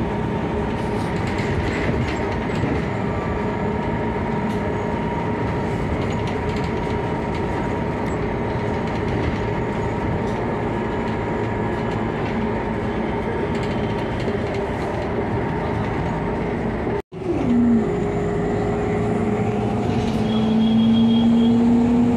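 Interior of a moving city bus: steady engine and road noise with a high whine holding steady. After a brief dropout about seventeen seconds in, the whine falls in pitch, then a new whine rises in pitch and gets louder near the end.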